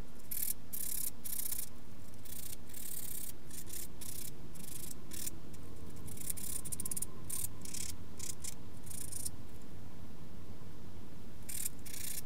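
Nail buffer rubbing across fingernails in a series of short, irregular scratchy strokes, pausing briefly near the end, as the last fragments of acetone-softened gel polish are buffed off.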